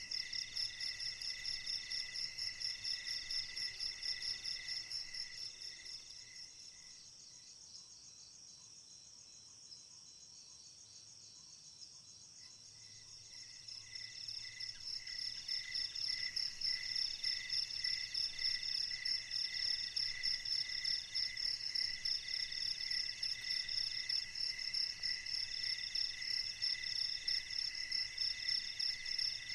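Night chorus of crickets: several fast, pulsing trills at different pitches, one of them coming in short repeated bouts. The chorus fades almost to silence about six seconds in and builds back up after about eight seconds.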